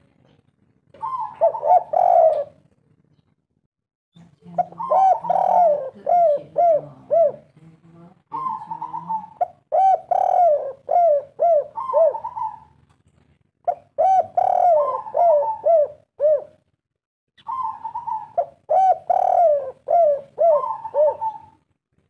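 Spotted dove (tekukur) cooing: five phrases of repeated curved coo notes with short quiet gaps between them, the 'kuk 3' song type that Indonesian dove keepers prize.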